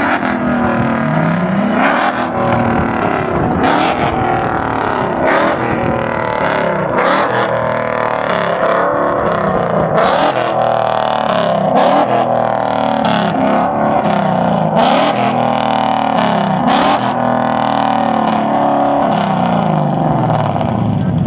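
Ford Mustang's engine revved hard over and over, its pitch climbing and dropping every second or two, with sharp cracks between the revs.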